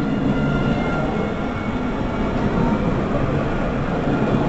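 Electric tram running past close by: steady rumble of steel wheels on rail, with the high whine of its electric traction motors.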